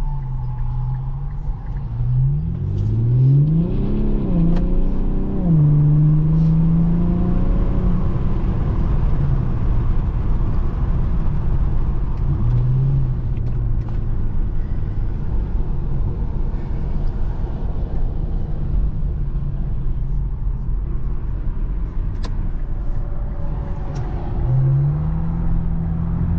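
Infiniti Q50's turbocharged engine pulling up through the gears: its pitch climbs and drops in steps a few seconds in, then it settles into a steady cruise with tyre and road noise. It revs up again near the end.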